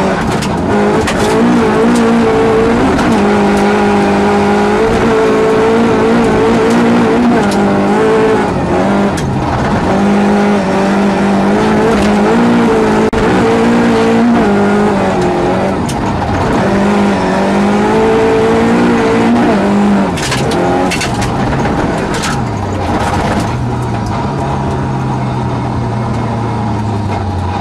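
Rally car engine heard from inside the cockpit, pulling hard at high revs on a gravel stage, its pitch climbing and dropping with throttle and gear changes, with sharp knocks from the gravel. About twenty seconds in, the revs fall away and the engine settles to a lower, steadier note as the car slows.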